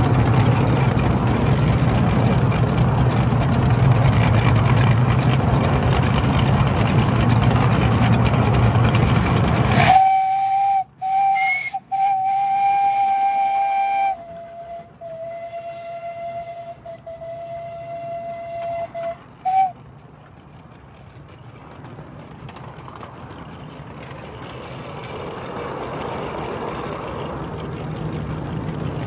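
Ride-on miniature steam locomotive running with a steady rumble and hum, then its steam whistle blows about ten seconds in: two short toots and a long blast that steps slightly lower in pitch, ending with a brief last toot. Afterwards the running noise is quieter and slowly builds back up.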